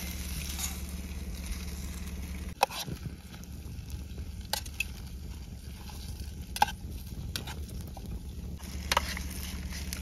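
Pasta sizzling in a cooking pan as it is stirred, with four sharp knocks spaced about two seconds apart.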